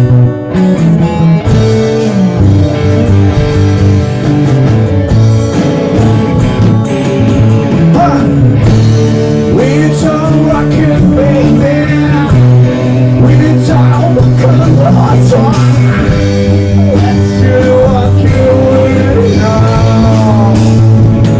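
Rock band playing live: guitars over a steady bass line, with a singing voice coming in about eight seconds in.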